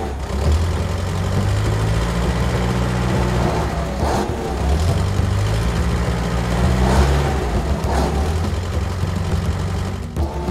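Engine sound of a remote-control heavy truck, running and revving. Its pitch steps up and falls back several times.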